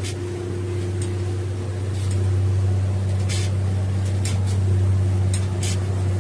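A small engine runs steadily with a constant low hum, and brief crackles come through a few times.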